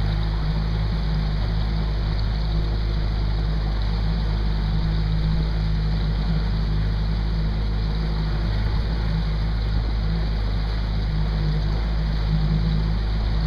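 Small fishing boat's motor running at a steady low drone as the boat moves along, with wind and water noise over it.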